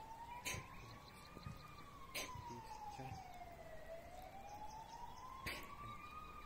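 A faint siren wailing, its pitch slowly rising and falling about every four to five seconds. Three sharp clicks cut across it.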